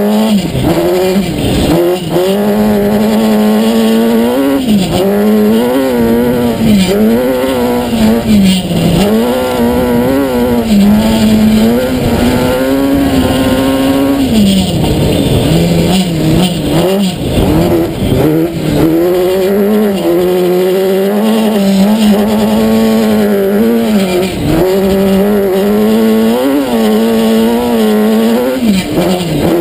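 Kawasaki ZX-10R inline-four motorcycle engine in a sand-rail buggy, revving hard under load: the pitch climbs and drops back again and again as the driver accelerates, shifts and lifts off.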